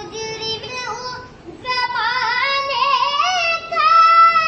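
A child's high voice singing a naat, an Islamic devotional song, solo and unaccompanied, in long ornamented notes that waver and glide, with a short breath pause about a second and a half in.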